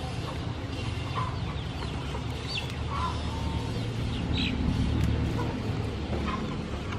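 Chickens clucking in short calls every second or two, over a steady low background rumble.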